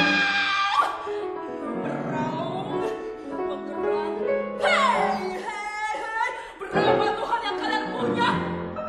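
Soprano voice with piano in a contemporary art song, the voice making sweeping slides down and up in pitch, partly sung and partly speech-like declamation.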